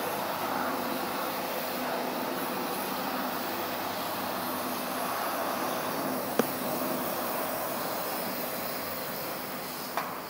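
Steady mechanical hiss and hum of self-service car wash equipment, a high-pressure washer pump and water spray, with a sharp click about six seconds in and another near the end.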